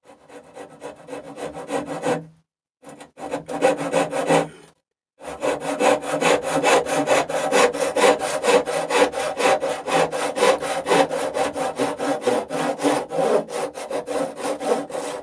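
Fine-toothed brass-backed dovetail saw (18 teeth per inch) crosscutting a wooden rail by hand in quick, even rasping strokes. It stops briefly about two seconds in and again near five seconds, then saws on without a break.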